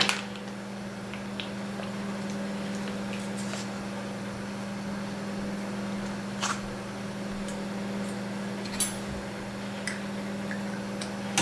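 Mayonnaise squeezed from a soft packet into a stainless steel bowl: a few faint squelches and light clicks over a steady low electrical hum.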